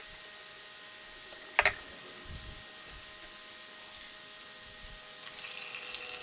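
Engine coolant trickling in a thin stream into a plastic drain pan as the cooling system is drained, heard near the end. Earlier, about one and a half seconds in, two sharp clicks from hands and tools at the fitting.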